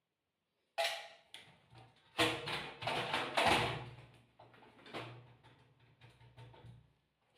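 A run of knocks, clicks and clatter, as of parts and tools being handled while working on a gas water heater, busiest a couple of seconds in and thinning out toward the end.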